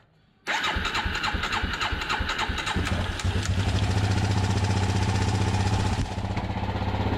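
2005 Polaris Predator 500's single-cylinder four-stroke engine starting cold about half a second in. It runs unevenly at first, then settles into a steady idle after three or four seconds.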